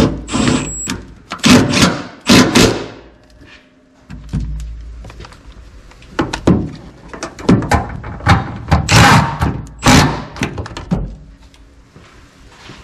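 Cordless impact driver run in several short bursts, hammering bolts and nuts down to fasten the brackets of a plastic coolant reservoir, with a pause partway through.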